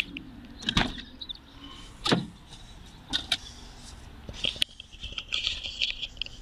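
Handling noise: scattered clicks and knocks, then a stretch of rustling, from the camera wire and plastic interior trim being worked as the wire is tucked in.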